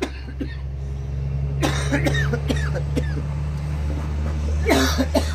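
Bee smoker's bellows pumped to puff out smoke: two bunches of short huffing bursts of air about three seconds apart, over a steady low hum.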